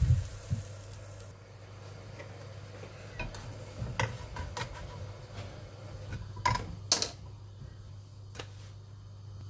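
A pancake sizzling briefly in a non-stick frying pan with a couple of low knocks at the start, then a spatula tapping and scraping against the pan in scattered sharp clicks as the pancake is lifted out, the loudest a few seconds before the end.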